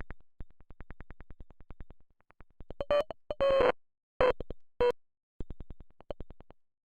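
Synthesized Mandelbrot set sonification: a rapid train of electronic clicks at about ten a second, broken by several short buzzy tone bursts, stopping about six and a half seconds in.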